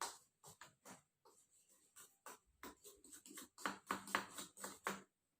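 Rapid, irregular taps and scrapes of a teaspoon against a funnel, working baking soda down into a model volcano. They grow busier and louder in the second half.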